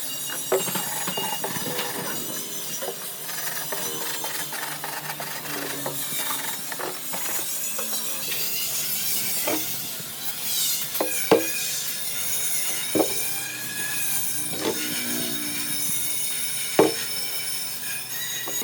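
Hand-tool work on the parts of an old washing machine: scattered clinks and scraping, with about half a dozen sharp knocks spread through.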